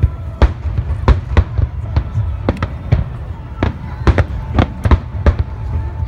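Fireworks shells bursting in quick, irregular succession: a dozen or so sharp bangs over a continuous low rumble of reports.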